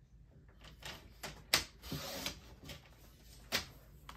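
A strip of white cardstock being picked up and handled on a desk: paper rustling and sliding, with sharp taps of card or hand on the tabletop, the loudest about one and a half seconds in and another near the end.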